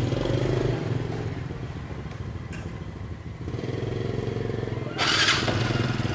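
Small motorcycle engines running at low speed as the bikes pull away slowly, a steady low hum. A brief, harsher noise about five seconds in.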